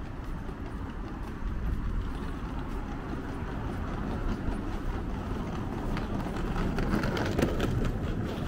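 City street ambience: a steady rumble of traffic, with a vehicle passing louder near the end.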